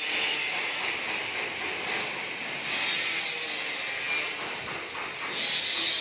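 Hand-held metal-cutting torch hissing as it cuts sheet metal, a steady hiss that swells and eases a few times.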